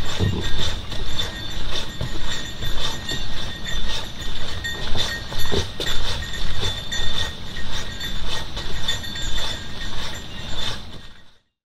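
Footsteps on a dirt-and-gravel portage trail with a Swift Keewaydin 15 canoe carried overhead: the hull and yoke knock and creak in time with each stride, about two steps a second. It stops abruptly near the end.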